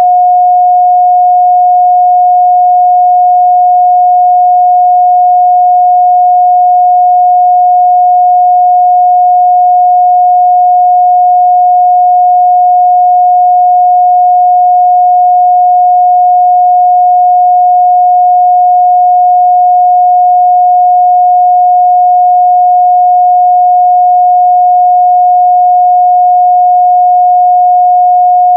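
Steady, loud 721 Hz sine-wave test tone, a single pure pitch held without change.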